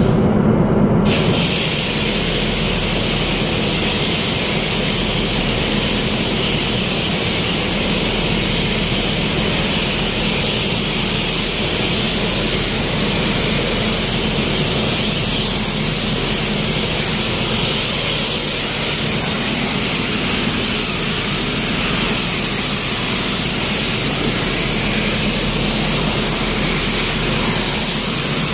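Bilge suction pipe in a cargo hold bilge well drawing water and air, a steady loud hiss that sets in abruptly about a second in, showing the bilge suction is pulling from the well.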